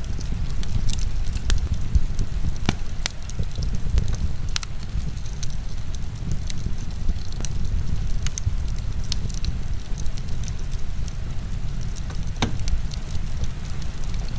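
Wood fire crackling, with scattered sharp pops a few times a second, over a steady low rumble and a faint hiss of heavy rain.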